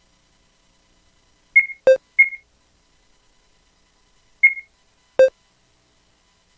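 Short electronic beeps from an ultrasound machine's controls, in two pitches. Three come in quick succession about two seconds in (high, lower, high), then a high beep and a lower beep about three seconds later.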